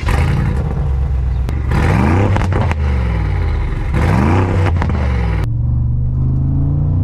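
Mansory G900's 4.0-litre twin-turbo V8 revved twice while standing still, each rev rising and falling back, then running steadily near the end.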